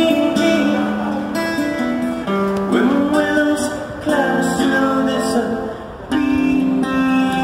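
A man singing live to his own strummed acoustic guitar. The strumming eases off briefly just before six seconds in, then comes back strongly.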